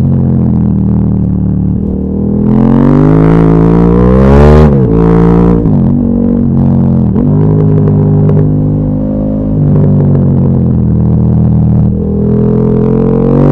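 KTM 1290 Super Duke R's 1301 cc V-twin engine under hard acceleration: its pitch climbs steeply, drops sharply with a gear change and dips a couple more times, runs steady for several seconds, then climbs again near the end.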